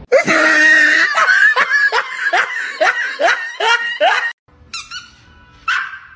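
A person laughing loudly in a quick run of ha-ha bursts, about two a second, which cuts off suddenly about four seconds in; two short, fainter sounds follow.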